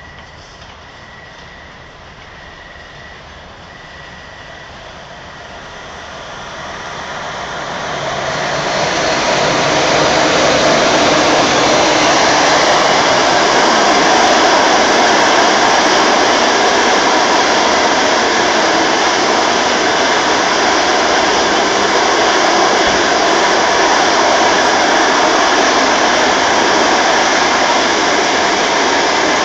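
A ChS7 twin-section electric locomotive hauling a long passenger train approaches, growing louder over about ten seconds as it comes up and passes. Then come the carriages rolling by close at speed, a loud steady noise of wheels on the rails.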